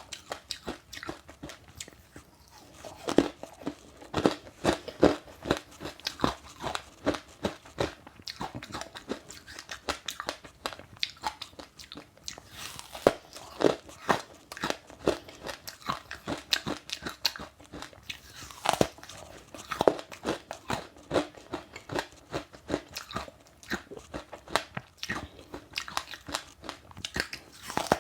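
Chewing passionfruit with sesame seeds: a continuous run of sharp, irregular crunches as the hard seeds crack between the teeth.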